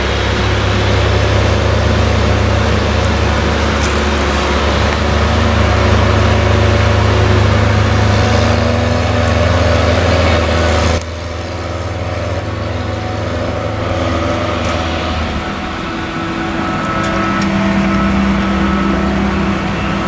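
Claas Jaguar 970 forage harvester with its Orbis 750 maize header chopping maize under load, with the tractor hauling the trailer alongside: a steady heavy drone with a constant hum. The sound drops abruptly about eleven seconds in and then goes on the same.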